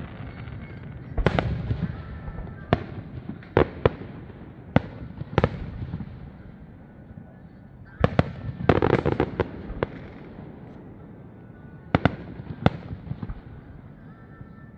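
Aerial fireworks shells bursting: a series of sharp booms at uneven intervals, with a dense cluster of bursts about eight to nine seconds in, and a low rumble lingering between them.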